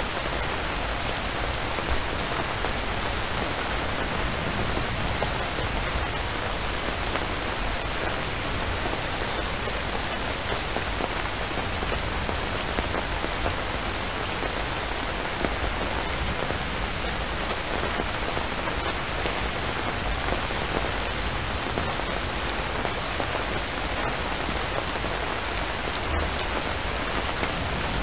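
Steady rainfall: an even, unbroken hiss of raindrops.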